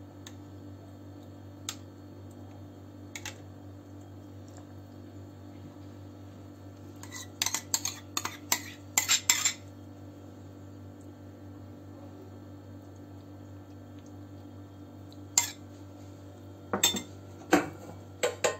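Metal spoon clinking and scraping against a ceramic bowl as yogurt is spooned out onto a plate. Scattered sharp clinks, busiest about seven to nine and a half seconds in and again near the end, over a steady low hum.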